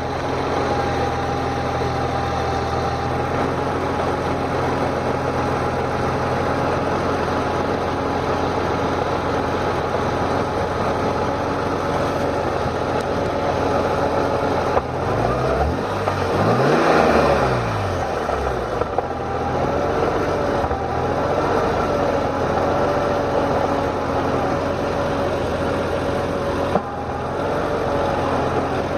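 BMW E46 M3's S54 straight-six idling, with one brief blip of revs about halfway through. At idle it makes an odd jiggle or bang noise that the owner cannot explain.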